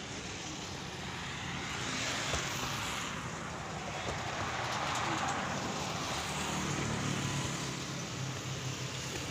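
Road traffic passing: vehicle noise swells and fades twice, then a low engine hum holds steady through the last few seconds.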